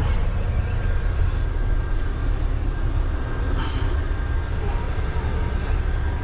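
Semi truck's diesel engine running with a steady low rumble while the tractor-trailer is manoeuvred into its parking spot.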